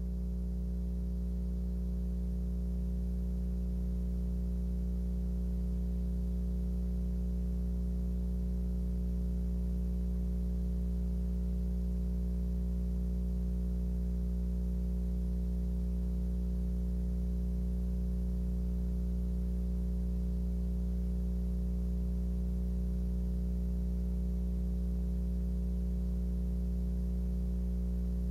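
Steady low electrical hum with a faint hiss over it.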